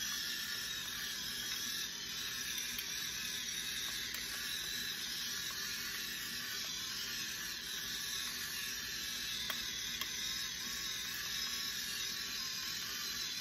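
Stainless-steel pepper mill grinding black pepper steadily, with a couple of faint clicks about three quarters of the way through.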